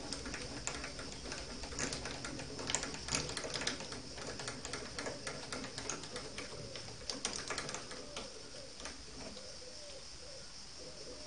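Irregular metallic clicks and ticks as the carriage and cross-slide handwheels of an Optimum D180x300 Vario mini lathe are cranked by hand, thinning out near the end, over a steady high whine.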